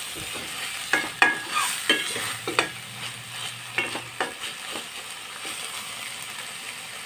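Metal spoon scraping and clinking against a stainless steel pan while sautéed alamang (tiny shrimp) sizzles in it. The spoon strikes come irregularly through the first five seconds or so, then only the steady sizzle remains.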